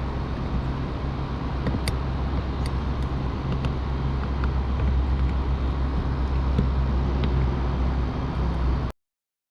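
A steady low mechanical hum, like an engine or generator running, with a few faint light clicks; it cuts off abruptly near the end.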